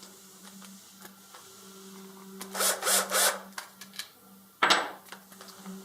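Hand tools working on screws and lock nuts as they are tightened down: three short scraping rasps about halfway through, then a sharp clack near the end. A steady low hum runs underneath.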